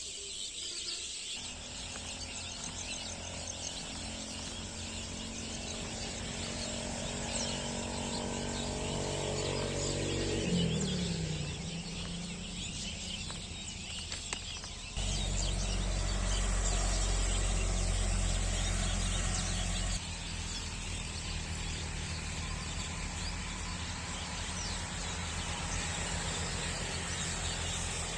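A dense chorus of many birds chirping and twittering from a tree. Beneath it a low droning hum drops in pitch about ten seconds in, and a louder low rumble runs from about 15 to 20 seconds.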